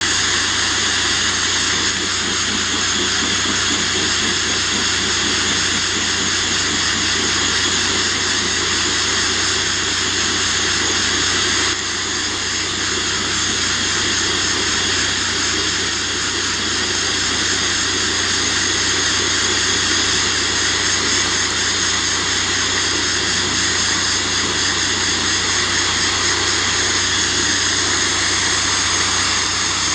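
Abrasive blasting: compressed air drives glass media from a blast nozzle against a Ford Transit wing, a loud steady hiss with a low hum underneath. The hiss dips briefly about twelve seconds in.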